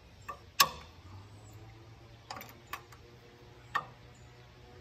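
Sharp metallic clicks and knocks of a long socket wrench working the cylinder head bolts loose: a few separate clicks, the loudest about half a second in, more around two and a half seconds and near four seconds.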